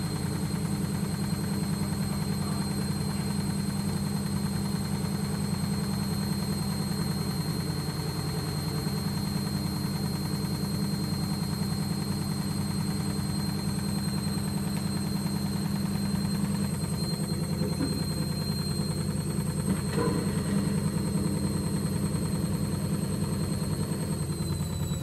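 Logik L814WM16 front-loading washing machine on an interim spin at 600 rpm with an unbalanced load: the drum drives a fast, heavy knocking vibration as the cabinet bangs against the cupboard beside it, over a steady motor whine. Near the end the whine starts to drop in pitch as the spin slows.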